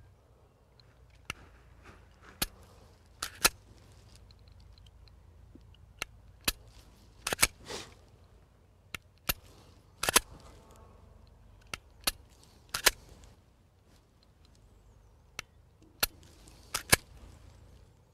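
Kahr CW9 9mm pistol fired again and again at an uneven pace, sharp single shots with several fired in quick pairs.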